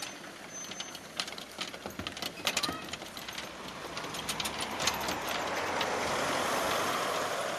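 A road vehicle going by, its noise swelling over a few seconds and peaking near the end. Scattered sharp clicks and knocks come before it.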